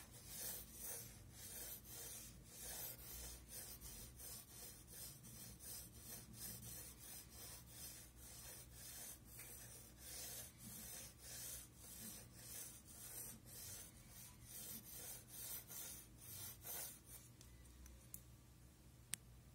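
Graphite pencil scratching across drawing paper in quick, repeated hatching strokes, about two or three a second, as hair is shaded in. The strokes stop near the end, and a single sharp click follows.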